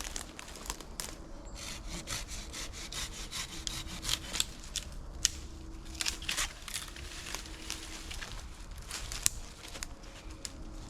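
A small hand saw cutting through a wooden stick in quick, repeated back-and-forth strokes.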